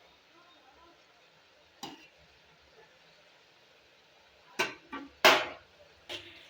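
A spoon or ladle knocking and scraping against a metal pressure cooker while stirring frying masala: five short sharp knocks, the loudest a little past five seconds in, with quiet between them.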